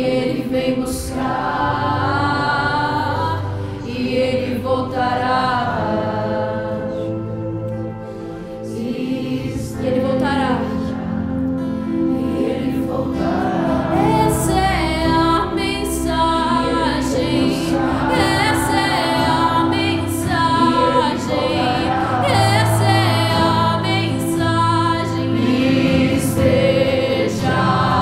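Live worship music: a woman singing at the microphone over steel-string acoustic guitar and keyboard, with a brief lull about eight seconds in.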